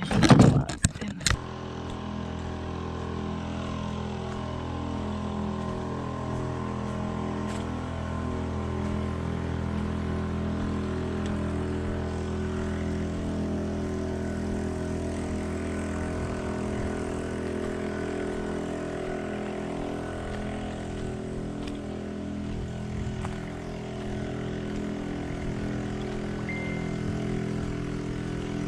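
Propeller aircraft engine droning steadily overhead, its pitch sliding a little early on. A few sharp knocks come in the first second.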